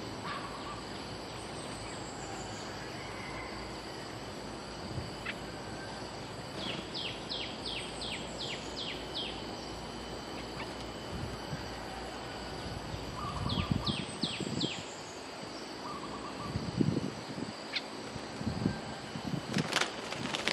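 Bulbuls calling: two runs of quick, sharp falling notes, about three a second, with a few softer warbled notes, over steady background hiss. Several low soft thumps and a sharp knock come in the last few seconds.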